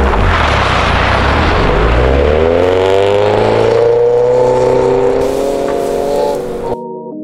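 Rally-sprint cars accelerating hard away from the start on a snow-covered ice track, with engines revving and the hiss of tyres throwing snow. The engine note climbs steeply and then holds high before music cuts in near the end.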